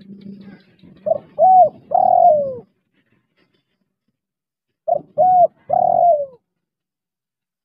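Spotted dove cooing twice, about four seconds apart. Each call is three notes: a short note, an arched note, and a longer note that falls at its end. A faint low sound comes just before the first call.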